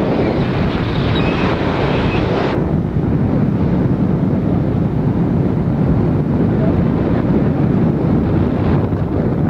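Loud wind buffeting the microphone during a tandem parachute descent under an open canopy, a steady rushing noise. The hiss thins out about two and a half seconds in.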